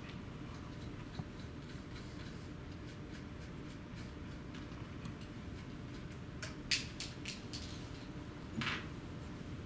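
Light clicks and knocks of a toilet fill valve's mounting nut being unscrewed from under the tank: a few sharp clicks about two-thirds of the way in and a short scrape near the end, over a steady low room hum.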